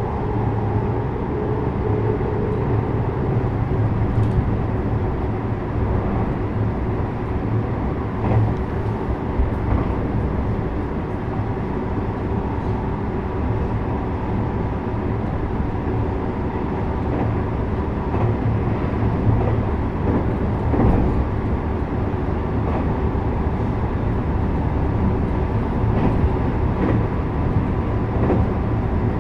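JR West 321 series electric multiple unit running between stations, heard from inside the passenger car: a steady rumble of wheels on rail with a constant motor hum, and a few faint clicks along the way.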